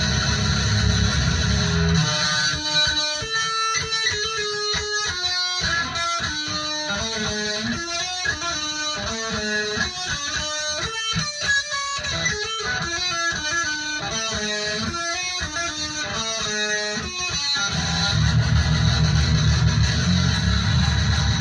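Heavy metal music on distorted electric guitar. About two seconds in the heavy low end drops out for a fast melodic guitar passage of quick single notes, and the full heavy sound comes back near the end.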